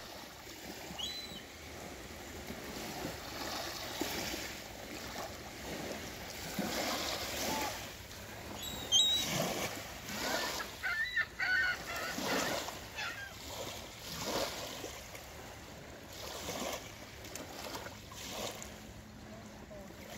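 Trumpeter swans honking again and again, with small waves lapping on the shore underneath.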